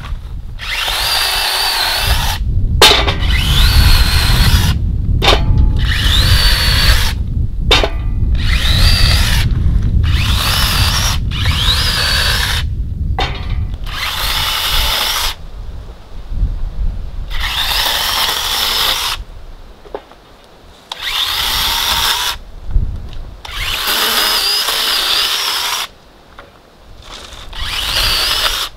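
Small cordless electric chainsaw cutting dry branches into firewood in about a dozen short bursts, each cut opening with a rising whine as the chain spins up, with brief pauses between cuts.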